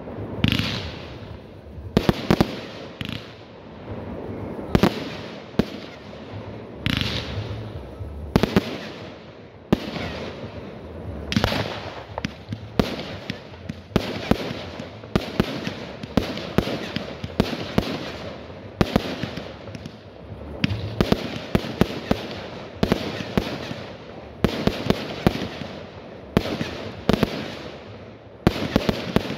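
A fireworks display with aerial shells bursting in quick succession: sharp bangs with crackling between them. The bangs come a second or two apart at first, then pile up thick and fast after about ten seconds.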